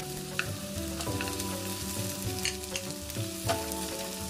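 Cashews and aromatics frying in oil and butter in a pan, a steady sizzle, with a spatula stirring and knocking against the pan several times. Soft background music with held notes runs underneath.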